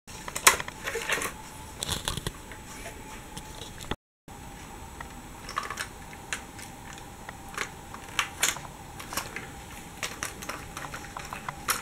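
Irregular light plastic clicks and taps as a brick-built toy locomotive is handled, turned over and set down, with a brief silent break about four seconds in.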